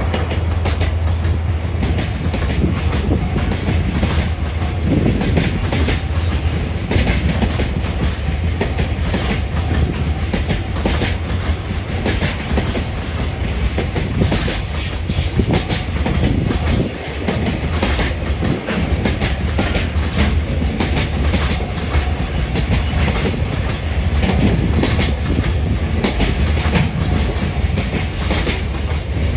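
Container flat wagons of a long freight train rolling past close by, their wheels clacking over the rail joints over a steady rumble.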